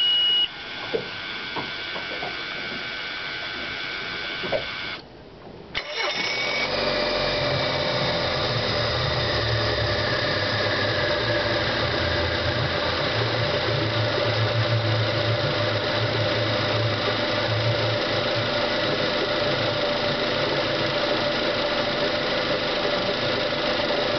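A short high beep, then a low hum with a few clicks. About six seconds in, the Mercury 90 hp four-stroke EFI outboard catches on a cold start and settles into a steady idle.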